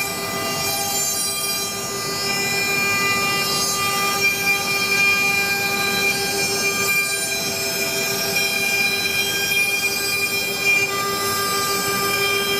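CNC wood router's spindle running with a steady high whine made of several fixed tones, while its bit cuts along the edge of a wooden board at normal working feed.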